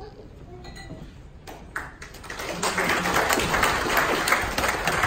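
An audience clapping in applause, building from about two and a half seconds in, after a couple of knocks.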